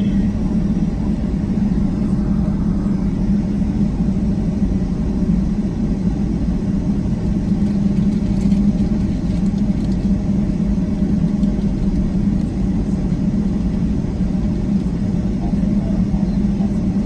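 Steady low drone inside the cabin of a Boeing 757-200 taxiing, from its jet engines at taxi power and the wheels rolling on the taxiway, with a constant low hum running through it.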